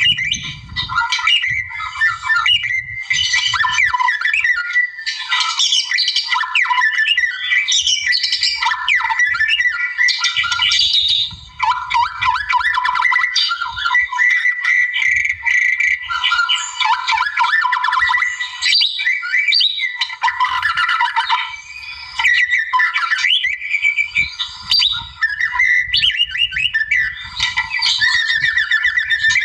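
White-rumped shama (murai) singing continuously: a loud, fast, ever-changing stream of whistles, chatters and trills, broken only by a couple of brief pauses.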